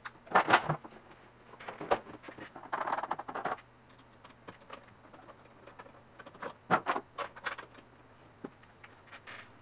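Irregular plastic and metal clicks, knocks and rattling from a combination embroidery and sewing machine being switched from embroidery to sewing mode. In the first few seconds the embroidery unit is slid off the machine, then a presser foot is fitted under the needle, with a cluster of sharp clicks about six and a half to seven and a half seconds in.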